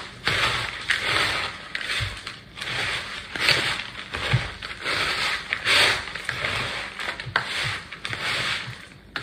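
Bare hands squishing and kneading raw ground beef and sausage with eggs and crushed saltine crackers in a plastic bowl: wet squelching strokes, irregular, about one or two a second.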